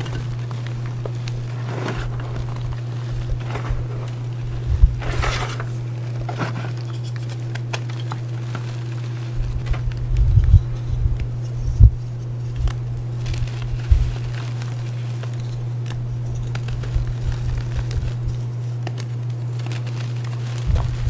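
Reformed gym chalk bars being crushed and crumbled by hand: irregular crunches and crackles as the hard, glassy chunks break and grind into powder, loudest twice near the middle. A steady low hum runs underneath.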